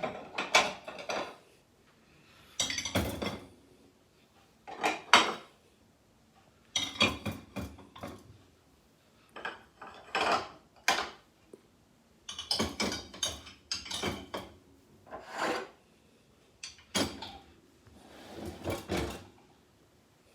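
Pots and dishes clattering and knocking as they are loaded into a dishwasher's racks, in short bursts of rattling with brief pauses between them.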